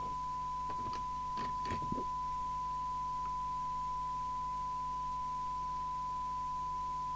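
Steady single-pitch test tone from a President Johnson 2 CB radio's loudspeaker as it receives a tone-modulated test signal during receiver alignment, with a low mains-type hum beneath it. A few small clicks come in the first two seconds as a screwdriver works an adjustment in the set.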